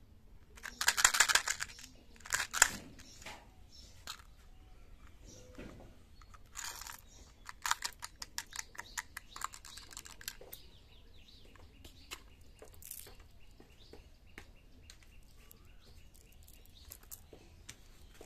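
Tic Tac mint box being handled: a few loud clicks of its plastic flip lid early, then a quick run of small hard clicks and rattles from about seven to ten seconds in as the mints are tipped out into a palm.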